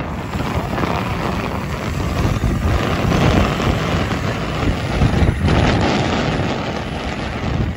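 Wind buffeting the microphone and wheels rumbling on asphalt while riding an electric skateboard at speed. A faint steady whine comes in about five seconds in.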